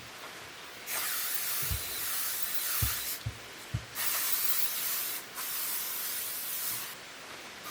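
Aerosol can of bug spray hissing in long sprays: one of about two seconds starting a second in, then after a short pause a longer one of about three seconds with a brief break in the middle. A few soft knocks fall between them.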